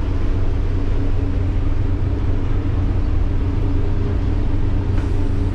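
Car ferry's engines running with a steady low drone and hum, heard from the wheelhouse.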